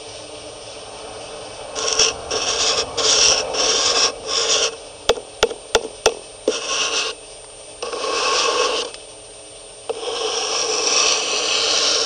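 A finger rubbing on a wooden tabletop, greatly amplified by a homemade high-gain listening amplifier set on low and played through an earphone held to the camera's microphone. It comes as a series of scratchy rubbing strokes, then about four sharp taps around the middle, then more rubbing. A faint steady high whine runs underneath.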